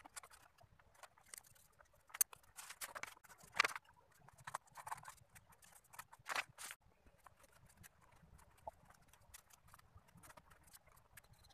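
Faint, irregular clicks and rustles of paper being handled and pressed down by hand onto cardboard, frequent at first and sparser after about seven seconds.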